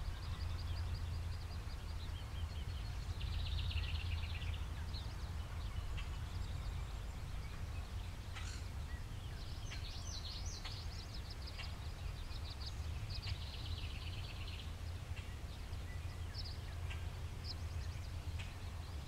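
Birds chirping, with short high calls and quick trills coming in several runs, over a steady low outdoor rumble.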